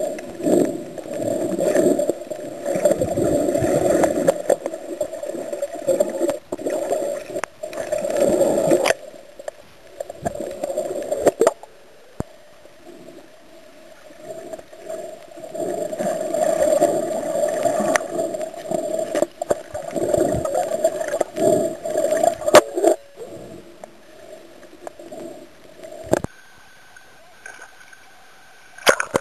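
Muffled underwater noise picked up by a camera in a waterproof housing: water swishing and gurgling against it in uneven surges, with a few sharp clicks or knocks. It changes and drops near the end as the camera reaches the surface.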